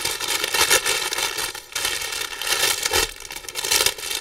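Clear plastic bags crinkling loudly as they are handled, small packets of diamond painting drills being pushed into a larger bag, with a couple of brief pauses.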